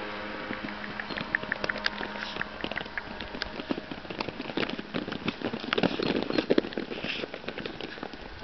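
Doodle puppies scampering and tussling on artificial turf: quick, irregular patters and ticks of paws and claws, busiest about two-thirds of the way through. A low hum fades out in the first second or so.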